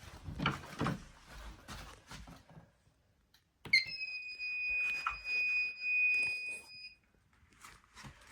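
Handling clatter and rustling, then a steady high-pitched electronic beep lasting about three seconds that starts near the middle, with bumps and rustling over it.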